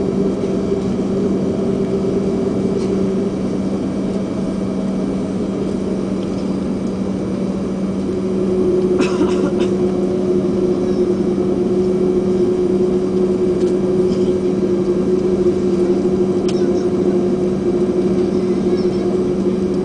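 Airbus A330-300 jet engines and cabin drone heard from inside the passenger cabin, a steady hum with two held tones. About eight seconds in the engine note gets a little louder and a new steady tone comes in.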